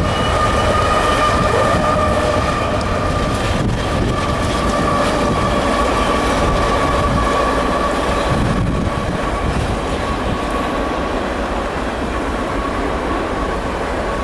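CSX freight train passing: diesel locomotives rumble by, then freight cars roll past with a steady high whine that sinks slowly in pitch.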